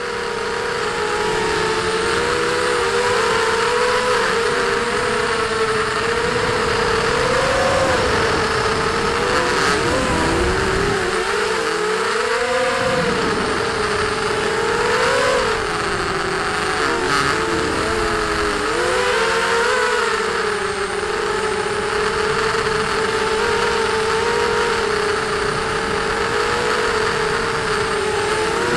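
The 2300 kV brushless motors and propellers of a ZMR250 racing quadcopter whining in flight: several close tones at one pitch that waver up and down as the throttle changes, over a steady hiss, heard from the camera on board.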